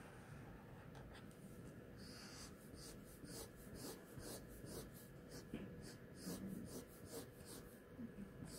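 Broad tip of a felt marker scratching across paper in quick, faint colouring strokes, about three a second, starting about two seconds in.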